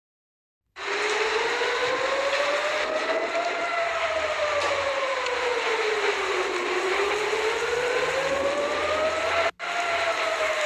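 Turkish civil defense siren wailing, its pitch slowly rising and falling about every six seconds over a steady hiss. It starts abruptly about a second in and cuts out for an instant near the end.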